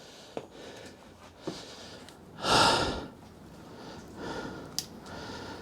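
A person's short, loud exhale about two and a half seconds in, a breath of relief, over low background noise with a few faint clicks.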